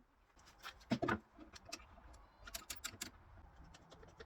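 Irregular light clicks and taps of small hard objects being handled, with a louder knock about a second in and a quick run of clicks near three seconds.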